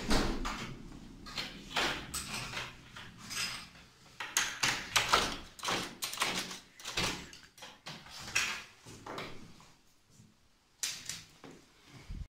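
A front door's lock and handle being worked and the door opened: a string of irregular metallic clicks and knocks mixed with rustling.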